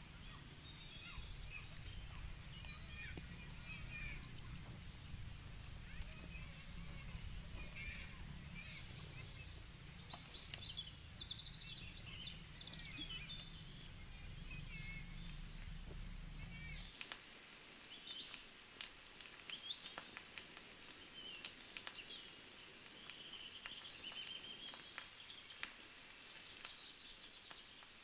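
Birds chirping in the open air, with a steady high-pitched whine and a low rumble underneath that both cut off about halfway through. After that the birdsong goes on, with scattered sharp clicks.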